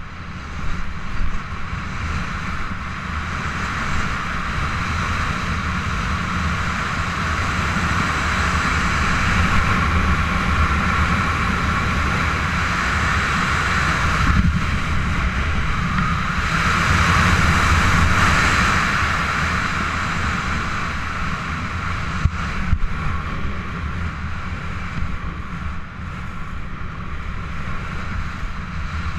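Rushing wind buffeting a body-worn camera's microphone as a speed rider descends at speed under a small wing. It is steady throughout, swelling louder in two stretches about a third of the way in and just past the middle, with a few short knocks near the start and about three quarters of the way through.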